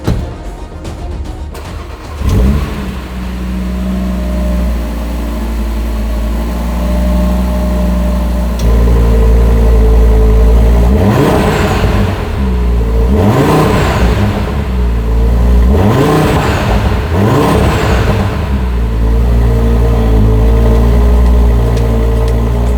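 Audi RS3's turbocharged 2.5-litre five-cylinder engine starting with a brief flare about two seconds in, then idling. Near the middle it is revved four times, each rev rising and dropping back to idle.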